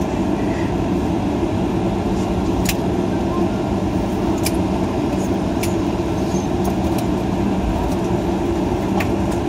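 Cabin noise of a Boeing 737-800 rolling on the ground after landing: the steady rumble and hum of its CFM56 engines and the airframe, with three sharp rattling ticks from the cabin spread across the middle.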